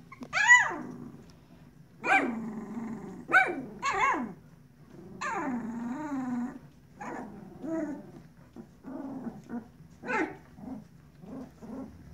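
Two-week-old puppies squealing, whining and giving small growls as they tussle in a pile. A loud high cry with falling pitch comes about half a second in, then longer low growly whines and short yelps come in a string throughout.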